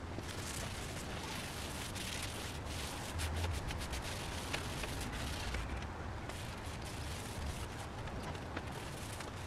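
Cloth rag wiping and rubbing Danish oil onto a wooden cabinet panel, with scattered small scrapes and cloth sounds, densest a couple of seconds in, over steady background rumble and hiss.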